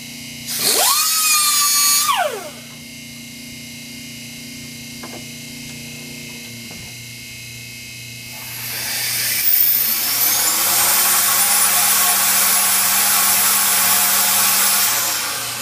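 A handheld pneumatic grinder spins up, runs for about two seconds on the compressor side of a KKK K26 turbo, and spins down. Later, the turbo's rotating assembly is spun up by air on a VSR high-speed balancing machine: a loud rush of air with a whine that climbs to a high steady pitch, holds for several seconds and stops near the end.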